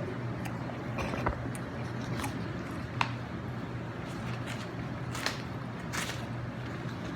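Close-up eating sounds: chewing salad and popcorn chicken, with a handful of short, sharp crunches and mouth clicks spread irregularly through it, over a steady low hum.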